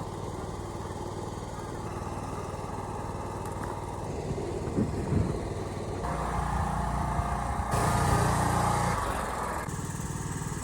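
Small engine of a riding lawn mower running steadily, growing louder for a few seconds past the middle before settling back.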